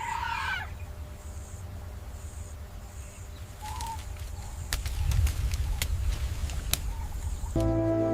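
Bird calls over a steady low rumble: a quick warbling call at the start, then a few faint chirps and a short call, with scattered sharp clicks in the second half.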